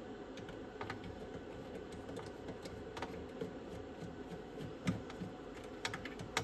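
Hand screwdriver turning out screws in a cassette deck's metal chassis: scattered light clicks and ticks, with a few sharper ones in the second half.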